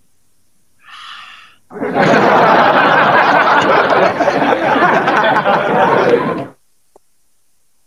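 A man's loud, heavily distorted vocal outburst, laughing and yelling, beginning about two seconds in and lasting nearly five seconds, after a shorter burst a second earlier.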